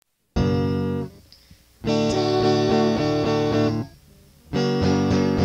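Music: a song opening on guitar chords, three of them, each ringing for one to two seconds with short breaks between.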